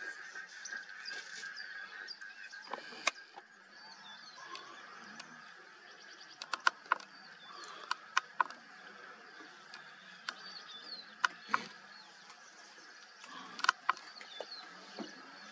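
Open-savanna ambience: a steady insect drone with small birds chirping, broken by sharp snaps and clicks about a dozen times, several in quick pairs.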